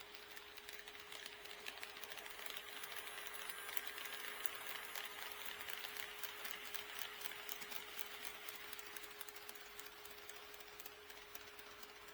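HO scale model train running along sectional track: its small motor and gears whirring and its wheels clicking rapidly over the rail joints, growing louder as it passes and fading again. A steady faint hum sits underneath.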